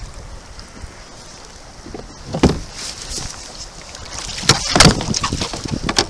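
Water sloshing around a fishing kayak, broken by several sudden splashes and knocks. One comes about halfway through, a loud cluster follows about three-quarters of the way in, and one more near the end.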